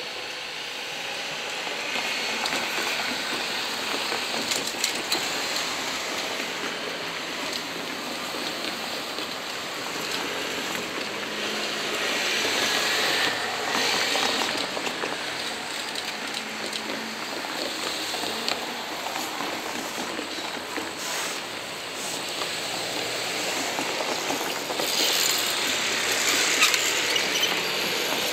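Seibu 2000-series electric train running away along the track, its wheel and rail noise mixing with steady street traffic noise. A car passes close about halfway through.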